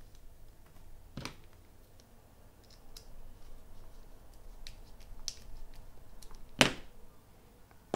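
Small plastic clicks and taps from hands taking apart Beyerdynamic DT252 headphone parts, with a sharper click about a second in and a loud sharp click about six and a half seconds in.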